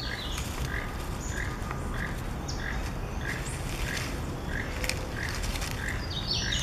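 Nine-banded armadillo rooting through dry leaf litter, the leaves rustling now and then, over a steady low rumble. An unseen animal gives a short chirp about one and a half times a second throughout.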